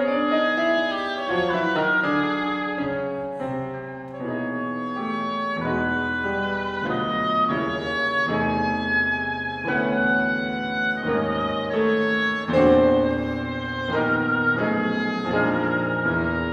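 Oboe and grand piano playing a classical duo: the oboe carries a sustained melody over changing piano chords.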